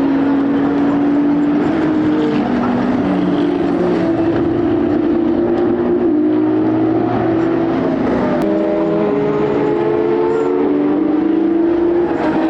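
Several endurance race cars running at speed, their engines overlapping, with pitches that climb and then step down as they shift through the gears.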